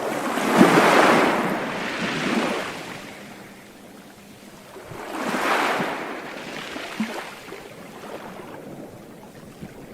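Sea waves washing onto a beach: two waves come in, one about half a second in and another about five seconds in, each surging loudly and then fading as it draws back.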